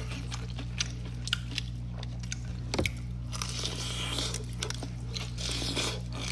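Close-up biting and chewing of crispy fried chicken tenders, with scattered crunches, over a steady low hum.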